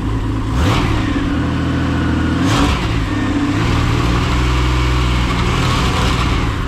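Ford Barra 4.0 L straight-six test engine running with no load on it, blipped twice so that the revs rise and fall quickly, otherwise running steadily.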